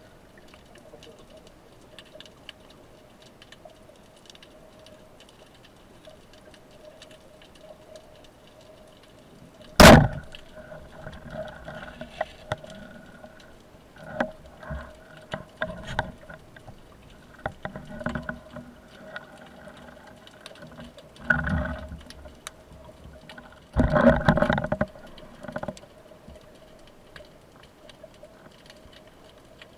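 Underwater, a rubber-band speargun fires with one sharp crack about ten seconds in, spearing a cuttlefish. Scattered knocks, clicks and short bubbling bursts follow as the speared cuttlefish is handled on the shaft, over a faint steady hum.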